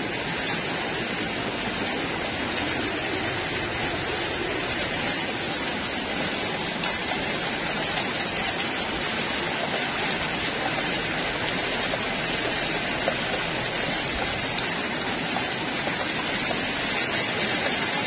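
Water dripping and showering from a mossy limestone cliff onto the rock and wet path below, a steady, even hiss of falling drops and spray like rain.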